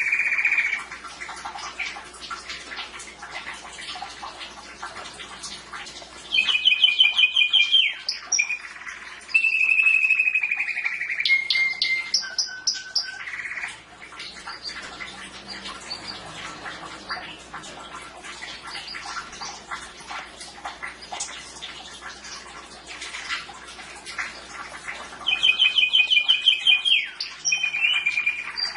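Canary singing: loud, rapid trilled phrases come several seconds in, again just after, and near the end, with softer continuous twittering and chattering between them.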